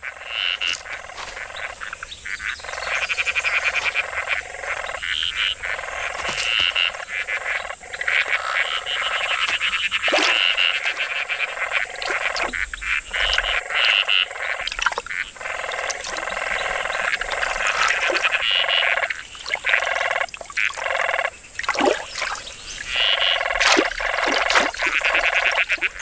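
A chorus of frogs giving rapid rattling mating calls that overlap and recur every few seconds: a breeding gathering after the first rain.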